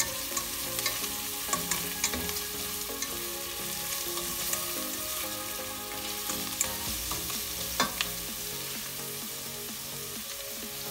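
Chopped onion sizzling in hot oil in a stainless steel pot, with a steady frying hiss. A slotted spatula stirring it knocks and scrapes against the pot now and then: a few clicks in the first two seconds and a sharper knock about eight seconds in.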